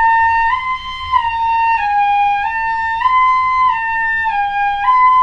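Pífano in C (Brazilian transverse fife) playing a scale exercise, stepping up and down between three neighbouring notes, G, A and B, one note about every half second and joined without gaps, then jumping from G up to B near the end.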